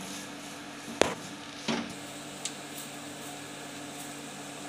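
Wooden spatula stirring thick masala in an aluminium kadai, knocking against the pan: a sharp knock about a second in, then a lighter one and a faint tick. A steady low hum runs underneath.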